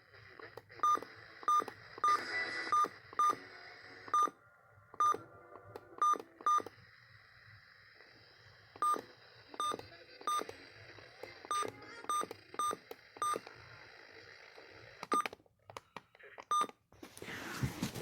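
A series of about twenty short, identical electronic beeps at uneven intervals of roughly half a second, like keypad button presses, over a faint steady background. A loud burst of hiss comes near the end.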